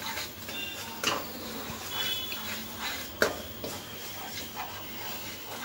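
Wooden spatula stirring and scraping thick besan mixture in a kadai as hot sugar syrup is poured in from a steel pan, with a knock about a second in and a sharper one about three seconds in as pan and spatula strike the kadai.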